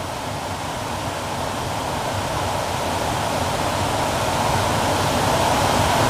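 Steady rushing of a waterfall and its running water, slowly growing louder.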